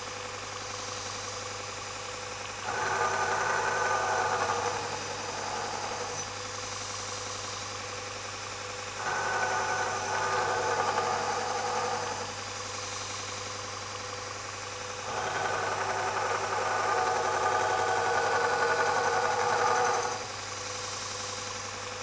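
A Sorby ProEdge belt linisher runs with a steady hum while a carving axe in a grinding jig is passed along its final, finest belt. Three passes stand out as a louder grinding hiss, lasting about two, three and five seconds. This is the last finishing grind of the flat bevel, done with light pressure.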